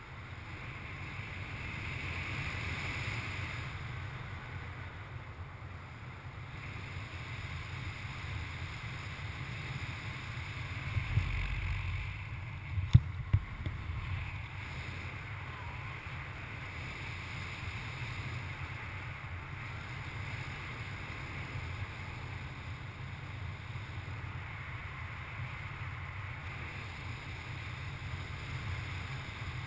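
Steady wind noise from the airflow of a paraglider in flight rushing over the harness-mounted camera's microphone, with a low rumble. A few short knocks on the microphone or harness come about halfway through.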